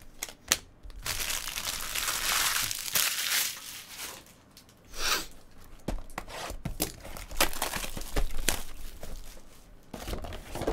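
Clear plastic shrink wrap being slit with a blade and pulled off a sealed box of Bowman's Best baseball cards, crinkling and tearing, with scattered sharp clicks.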